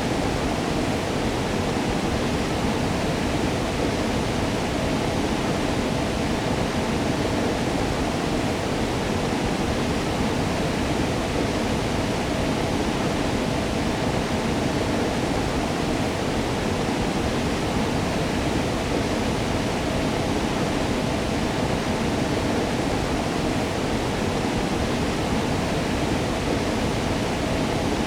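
Waterfall rushing in a steady, unbroken wash of noise, heaviest in the low-middle range.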